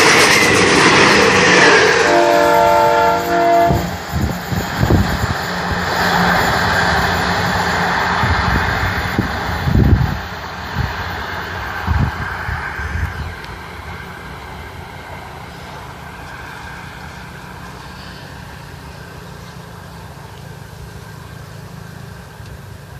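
A train passes on the track close by, with a short horn blast about two seconds in and several deep thumps as it goes. The train sound dies down after about thirteen seconds to a steady low rumble.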